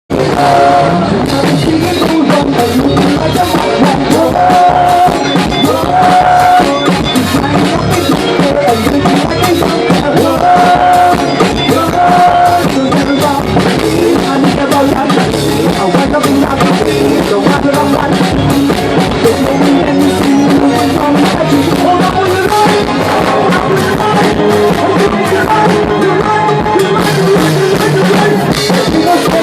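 Loud soca music with a steady drum beat and singing.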